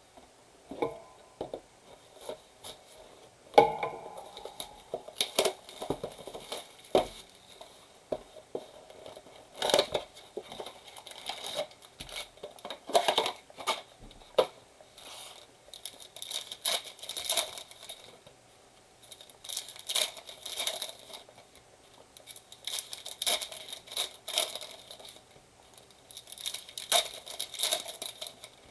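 Trading-card packaging being torn open and crinkled by hand: a run of irregular crackling rustles and small clicks with short pauses between them.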